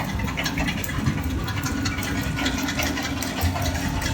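Sugar beet piler machinery running: a steady engine drone and conveyor hum with a constant clatter of rattles and clicks.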